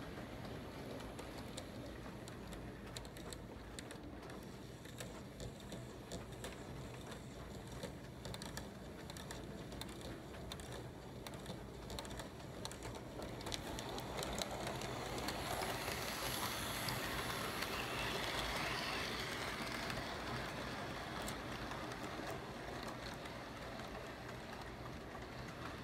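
HO scale model train running on its track: a light rolling rattle with many small clicks from the wheels. It grows louder about halfway through as the cars come closer, then eases off slightly.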